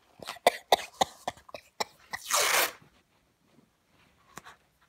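Handling noise from a phone clipped to a baseball cap's brim as fingers adjust it: a quick run of clicks and knocks against the phone, then one short rustling burst about two and a half seconds in, and a couple of faint clicks near the end.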